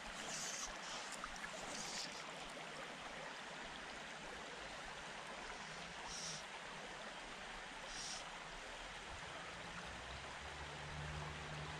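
Shallow creek running over a stony bed: a steady rush of water, with a few brief higher hisses. A low hum comes in near the end.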